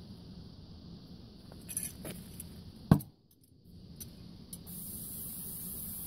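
Light metallic clinks and then one sharp knock about three seconds in, over a steady low hum. A steady high hiss sets in near the end.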